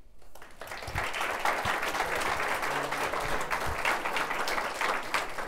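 Audience applauding, building up over the first second and easing off near the end.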